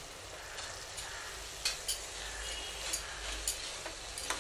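Metal slotted spoon scraping and clinking against a stainless steel pot as cooked rice is tipped in and stirred into the coriander paste, with a handful of sharp knocks over a faint sizzle of the paste frying.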